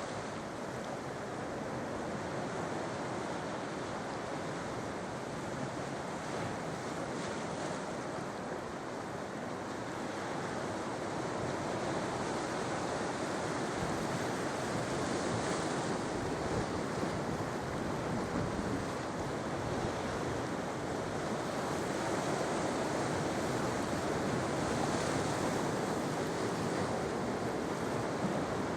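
Sea surf washing onto the shore: a continuous rush of breaking waves, growing a little louder about halfway through and again near the end.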